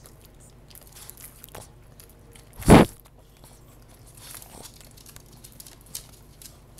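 Pug chewing a bite of chicken and licking its lips: scattered soft wet smacks, with one brief, much louder burst of noise a little under three seconds in.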